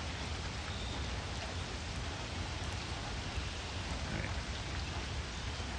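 Heavy rain falling steadily and pattering on the ground and collecting water, with a low rumble underneath.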